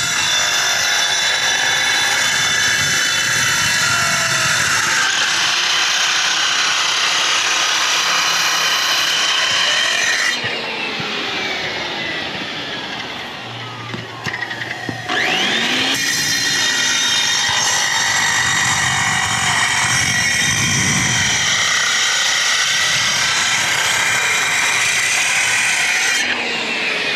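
Handheld circular saw (Skilsaw) cutting concrete with a steady, loud, high grinding whine. About ten seconds in the blade spins down with a falling pitch, then spins back up a few seconds later and cuts again until it winds down near the end.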